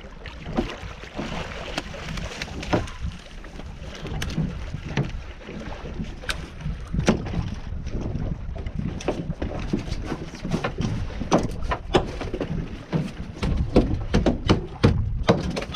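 Wind rumble on the microphone aboard a small fishing boat, with water against the hull and many irregular sharp knocks and clicks, coming thicker in the second half.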